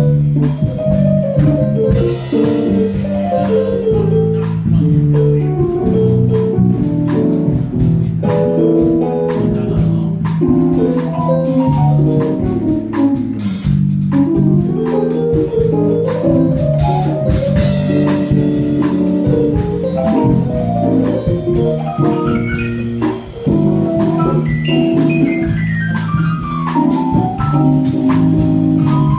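Live jazz combo: a keyboard solo on a Roland keyboard, quick runs of notes over walking bass and a drum kit. Near the end a run climbs high and comes back down.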